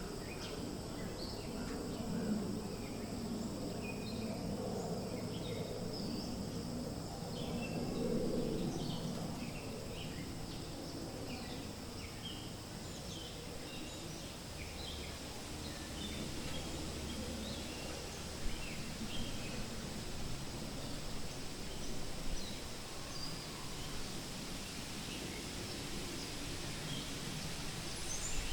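Wind rustling through forest leaves, swelling in a gust about eight seconds in, with scattered short bird chirps throughout.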